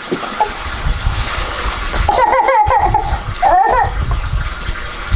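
A toddler babbling and laughing in short, high, gliding calls, about two seconds in and again near four seconds, over splashing water.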